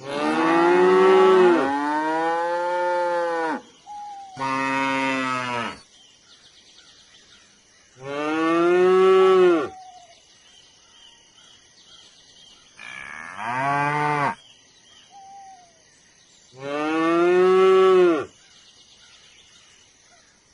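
Cattle mooing: five drawn-out moos a few seconds apart, the first the longest at about three and a half seconds.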